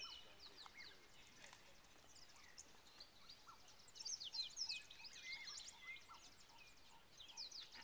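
Birds chirping faintly in the bush, quick high notes that sweep downward, with a busier run of calls about four seconds in.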